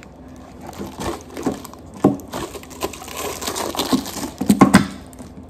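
Snap-lock plastic lid being pressed and latched onto a glass storage container: a string of irregular clicks and knocks with some rustling, the two loudest near the end. The airtight lid fits very tightly and is hard to close.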